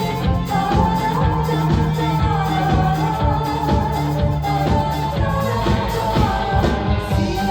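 Live pop song: a singer's melody in long held notes over steady bass notes and a regular beat.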